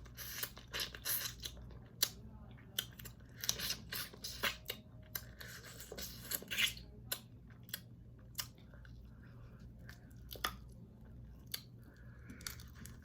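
Crab shell being cracked and picked apart by hand to get the meat out of the body: irregular sharp snaps, crackles and scraping.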